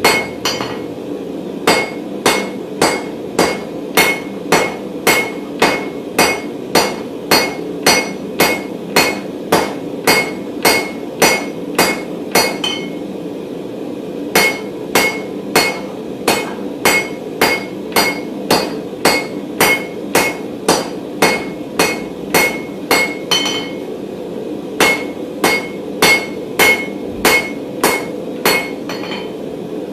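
Hammer blows on a hot 16 mm mild steel bar over an anvil, about two a second in steady runs, each with a short metallic ring, drawing the round bar down to a square section. The hammering stops briefly near the middle and again about two-thirds through. A steady hum runs underneath.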